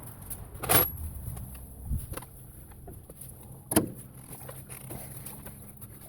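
Two sharp clanks about three seconds apart, among lighter clicks and rattles: metal parts and tools being handled during truck disassembly work.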